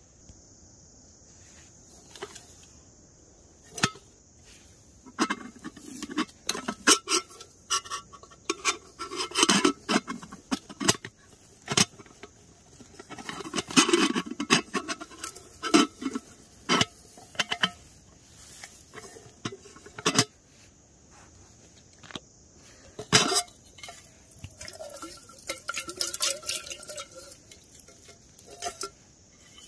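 Aluminium camping cookware handled and unpacked from a mesh stuff sack: irregular knocks and clinks of the kettle and its lid with rustling of the bag, busiest in the middle.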